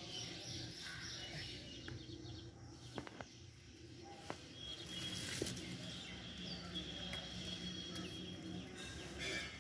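Outdoor ambience with birds chirping and a few sharp clicks.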